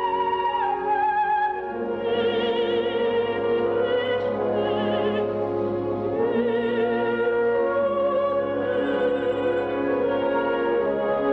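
An operatic coloratura soprano with a quick vibrato holds a high phrase over the orchestra, ending it about a second and a half in. The orchestra then plays on in a lower register, with sustained lines that waver with vibrato.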